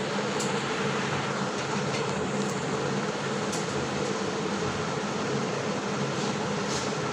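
Steady fan hum with an even hiss, and a few faint clicks.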